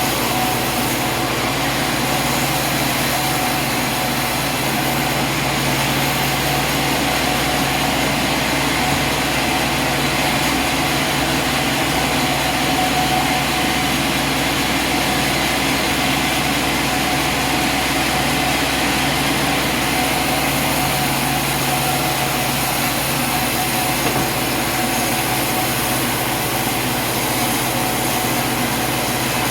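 Sawmill machinery running steadily: a constant mechanical drone with several steady tones, and no change in pitch or loudness.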